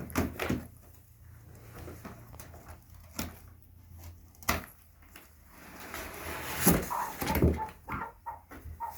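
Scattered knocks, bumps and clicks of things being handled, with a louder stretch of scraping and thuds about six to eight seconds in.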